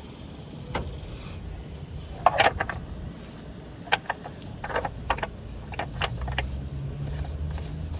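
A series of light metallic clinks and rattles from objects being handled, in short clusters a second or two apart, over a low steady hum.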